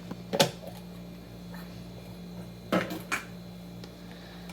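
A few sharp clicks and knocks from kitchen things being handled: one about half a second in and two more close together around three seconds in, over a low steady hum.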